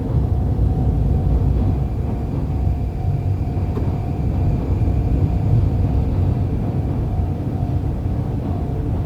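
Yokosuka Line electric train at the level crossing: a steady low rumble with a steady mid-pitched hum.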